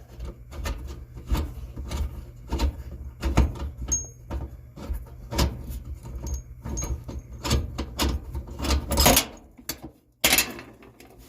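A socket wrench turning out the bolt of a clothes dryer's idler pulley, with a run of irregular metal clicks, knocks and rattles as the tool and parts are handled.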